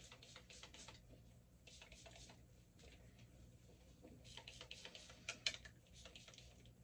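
Faint, quick spritzes from a pump spray bottle of hair detangler, in several rapid runs of short hisses.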